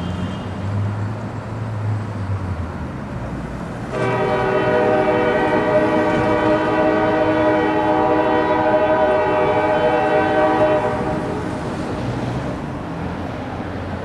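Diesel locomotive's Nathan K5LA five-chime air horn sounding one long, steady chord of about seven seconds, starting about four seconds in and cutting off, with a low locomotive rumble before and after it.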